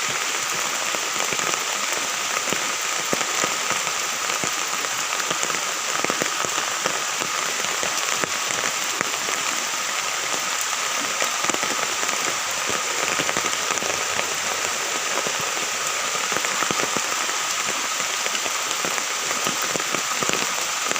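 Steady heavy rain falling, with a dense patter of close drop impacts, as on an umbrella overhead. A faint steady high tone runs underneath.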